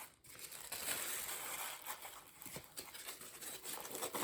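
Rustling of packaging being handled, with scattered light clicks.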